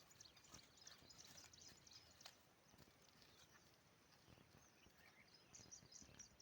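Near silence: faint background with scattered short high chirps and ticks and a few soft knocks.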